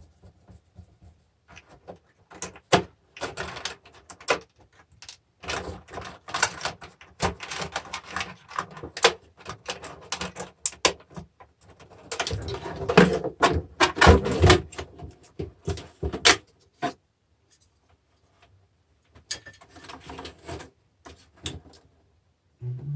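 Irregular clicks, rattles and clatter of parts and tools being handled as a car battery charger is taken apart by hand, with a brief pause in the handling about two-thirds of the way through.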